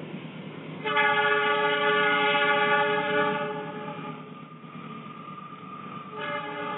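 Diesel locomotive air horn sounding a long blast of about three seconds, starting about a second in, then a second blast starting near the end, over the low rumble of the approaching passenger train.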